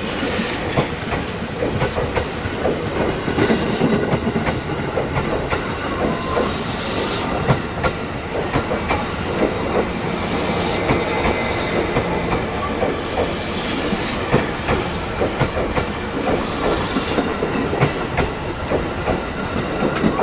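A JR 205 series 5000-番台 electric train running past, its wheels clacking over the rail joints, with a hiss that swells every few seconds.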